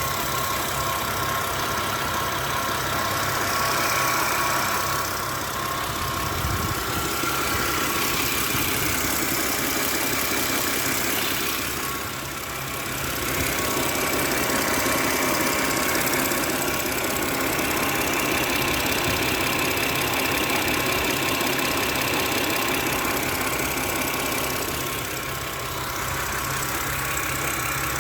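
BMW N52B25 2.5-litre inline-six idling, with the repetitive tick-tick-tick that the owner puts down to bad hydraulic lifters or an intake or exhaust valve.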